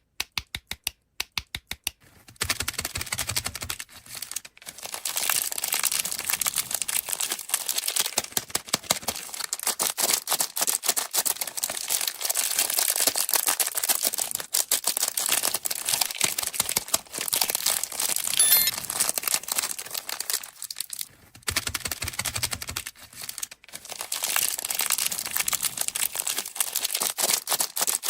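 A quick run of sharp clicks, then plastic candy wrappers crinkling and tearing open close to the microphone, with a brief lull about three quarters of the way through.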